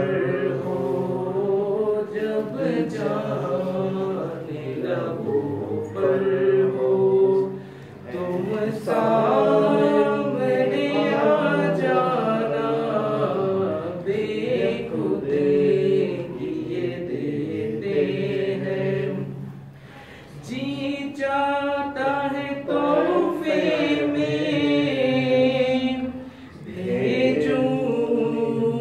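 A man singing a naat, an Urdu devotional song, unaccompanied, in long drawn-out lines. He breaks off briefly three times, about 8, 20 and 26 seconds in.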